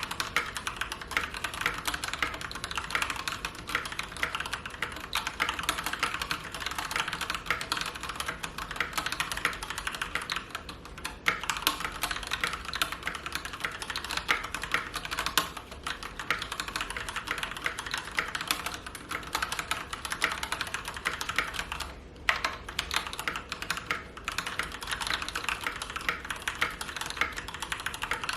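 Fast continuous typing on an Akko 3087 mechanical keyboard with Gateron Pink linear switches: a dense run of key clicks and bottom-out clacks, with brief pauses about a third, halfway and three-quarters of the way through.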